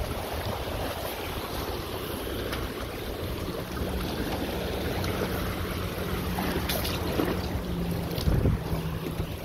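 Wind buffeting the microphone over small waves lapping against rocks and a floating dock. A faint steady hum comes in about three seconds in.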